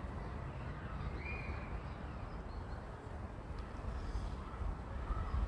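A bird calling briefly, once about a second in and again near the end, over a steady low outdoor rumble.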